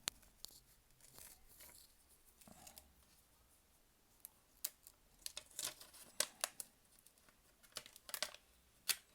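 Protective liner being peeled off the double-sided adhesive tape on a replacement phone back glass: faint tearing and crinkling of plastic film, in scattered crackles that come thicker in the second half. The tape tends to lift away with the liner, which the repairer puts down to poor adhesive on these back covers.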